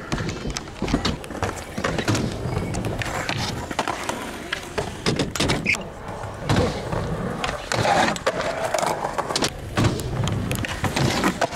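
Skateboard wheels rolling on concrete in a steady rumble, broken by repeated sharp clacks of the board hitting the ground.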